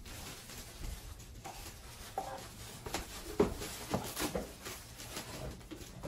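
Rustling and crinkling of a grey protective bag being handled and pulled open around a robot vacuum, with a few short handling knocks against the pulp cardboard packing tray.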